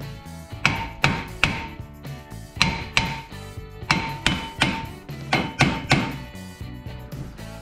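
A 3-pound sledge hammer striking the rusty front wheel hub assembly of a 4x4 SUV, about a dozen metal-on-metal blows in quick groups of two or three, each leaving a short ring, to break the seized hub loose.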